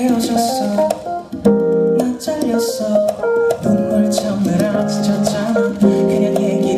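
A man singing live into a handheld microphone over instrumental backing, heard through the venue's sound system.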